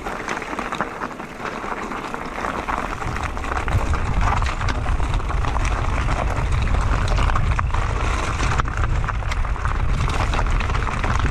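Wind buffeting the microphone and tyres rolling over dirt and stones while an electric mountain bike is ridden along a trail, with many small clicks and rattles throughout.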